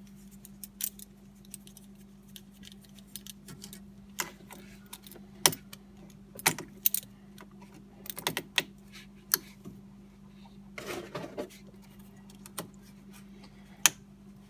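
Scattered light metallic clicks and clinks of hand work in a car's engine bay, tools and parts being handled, with a brief scrape about eleven seconds in over a faint steady hum.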